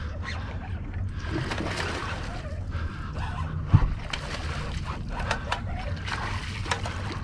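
A hooked bluefish splashing and thrashing at the surface, mixed with rapid clicking from a spinning reel being cranked. There is a single heavier knock about four seconds in.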